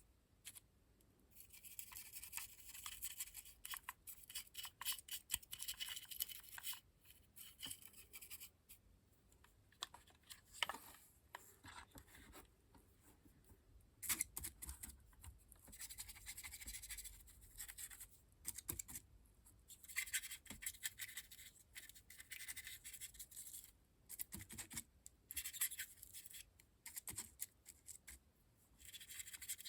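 Stiff brush scrubbing dry weathering pigment powder onto the body of an OO gauge model locomotive: runs of quick, scratchy brush strokes lasting a few seconds each, with short pauses between them.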